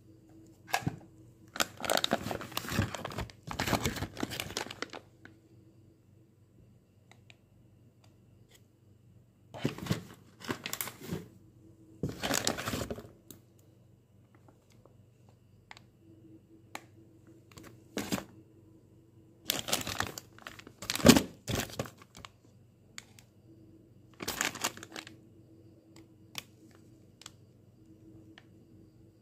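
Plastic zip-lock bags of small plastic tubes crinkling and rustling as they are handled, in irregular bursts of a second or a few seconds with quiet gaps between. The sharpest, loudest crackle comes about two-thirds of the way through.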